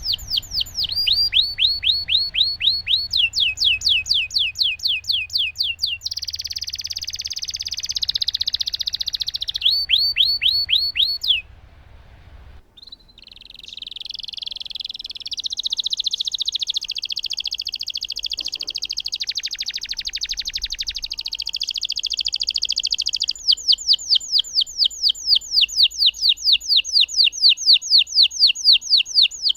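Domestic canary singing a long rolling song: runs of quick, repeated down-sweeping whistled notes alternate with long, rapid buzzy trills, with a short break about twelve seconds in.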